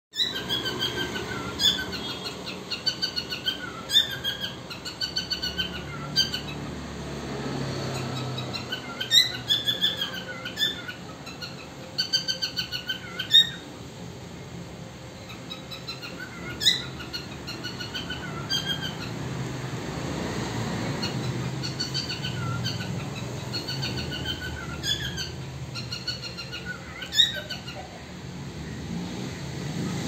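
Cockatiels chirping in quick runs of repeated notes, coming in bursts with short pauses between them, with a few sharp clicks among the calls.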